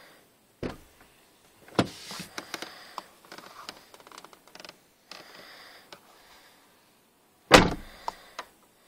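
Interior door handle and lock of a Mitsubishi Outlander XL being worked. A string of clicks and clunks from the latch and lock mechanism, with the loudest, deepest thunk near the end.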